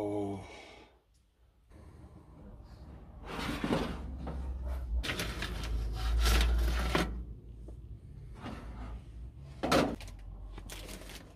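Handling sounds of potato wedges being taken out of a small portable gas oven and served onto a plate: clattering and scraping for several seconds, then a sharp clunk near the end.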